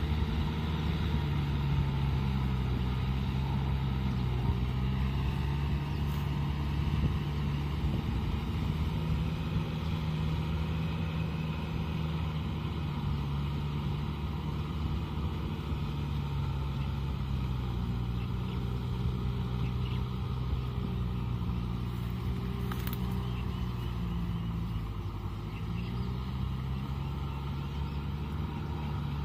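Kubota tractor's diesel engine running steadily under load as it tills a flooded, muddy field, its pitch shifting a little in the second half.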